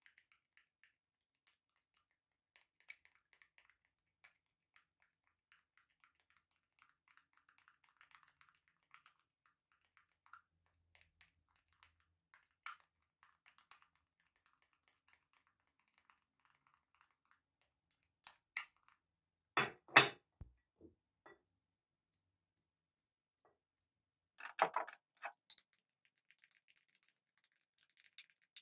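Plastic spoon stirring a thick slime mixture in a glass bowl: faint sticky crackling and small clicks, with a few louder knocks against the bowl about twenty seconds in and again about five seconds later.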